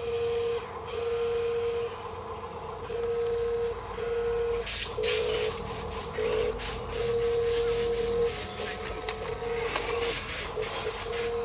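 Radio-controlled bulldozer's electric drive motors whining in short on-off runs as it is driven, joined from about five seconds in by bursts of rapid mechanical clicking.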